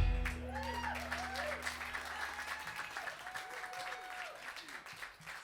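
Small audience applauding and cheering just after a live rock song ends, while the band's last held chord fades out over the first couple of seconds.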